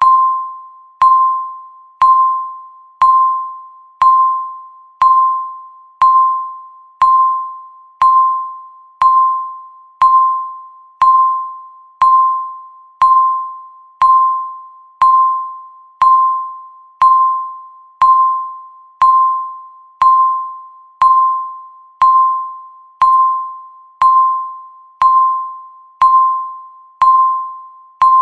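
Countdown timer beeping once every second: a single mid-pitched electronic ping that starts sharply and fades away before the next one, repeating evenly.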